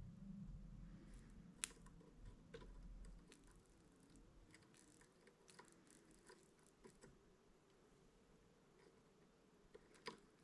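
Near silence with a faint low hum, fading after the first few seconds, and a scattering of small clicks and taps, the sharpest about a second and a half in and another near the end.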